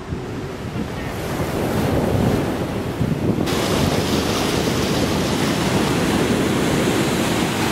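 Ocean surf breaking and washing up a sand beach, with wind rumbling on the microphone; the wash grows brighter and hissier about halfway through.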